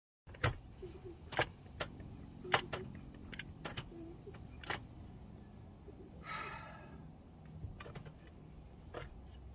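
Scattered sharp clicks and light knocks of hand-tool work on corrugated metal roofing around a stainless steel chimney pipe, spaced irregularly, over a low steady rumble.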